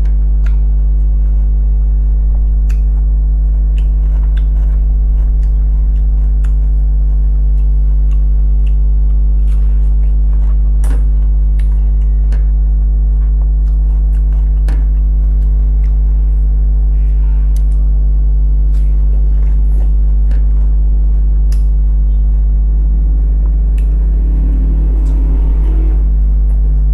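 A loud, steady, low electrical hum runs under faint scattered clicks of chewing and lip smacks. Near the end comes a breathy blowing-out through pursed lips.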